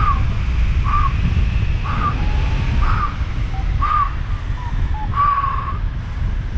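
Airflow rushing over the microphone during a fast paraglider descent at 60–70 km/h. A variometer gives short beeps about once a second over it, its sink alarm for the steep descent, and the last tone is longer.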